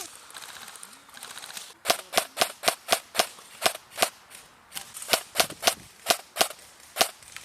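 Airsoft gun firing single shots in a quick series, about three to four cracks a second, starting about two seconds in with a short pause near the middle.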